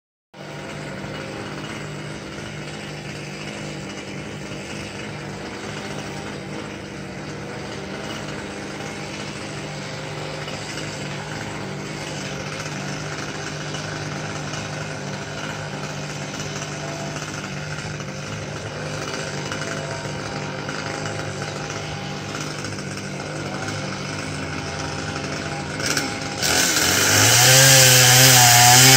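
A chainsaw runs steadily at an even pitch for most of the time. About 26 seconds in there is a short knock, then the saw is revved loud and bites into the trunk, its pitch wavering under the load of the cut.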